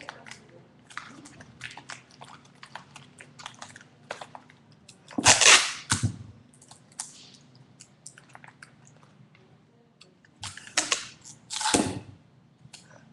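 Adhesive tape ripped off the roll in two loud noisy pulls, one around five seconds in and another around eleven seconds in. Between them come light crinkling and clicking of paper being handled and pressed.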